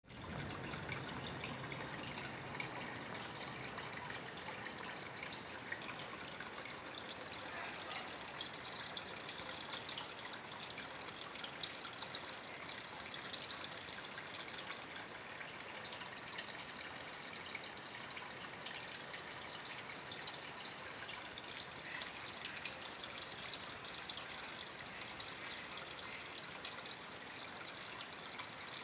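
Water trickling and splashing steadily into a fish tank, a constant fine splashing with no pauses.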